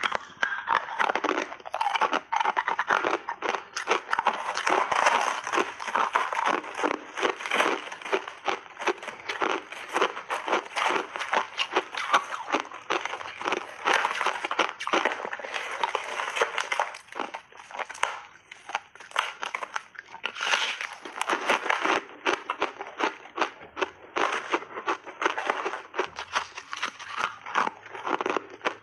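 Close-miked crunching and chewing of refrozen ice studded with colourful jelly pieces: a long, rapid run of sharp crackling crunches that barely lets up.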